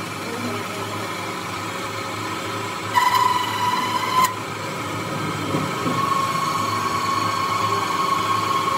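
Metal lathe running with a steady hum while it turns a metal dumbbell rod against a wheeled tool. A high whining tone from the tool on the spinning rod comes in loud for about a second, about three seconds in, then sets in again and holds steady from about six seconds on.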